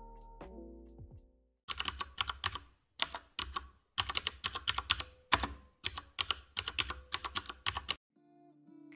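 Rapid typing on a computer keyboard in several quick runs, each stopping abruptly into silence, with the tail of a music phrase fading out at the start.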